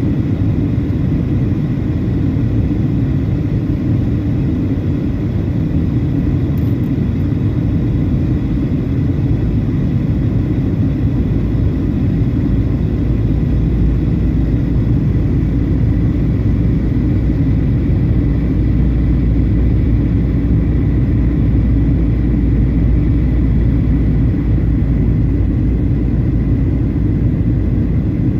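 Airliner cabin noise: a steady, loud rumble of jet engines and rushing airflow heard from inside the passenger cabin, with a faint steady high tone above it, during the descent on approach to landing.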